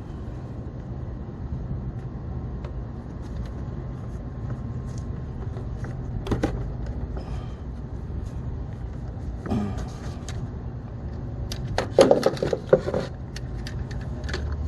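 Clicks and knocks of engine-bay parts being handled and fitted back into place, a few scattered ones and then a loud cluster near the end, over a steady low rumble.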